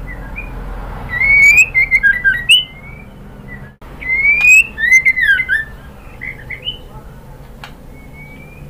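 White-rumped shama (murai batu) calling: loud rising whistles and quick notes in two bursts, about a second in and again about four seconds in, then softer scattered notes.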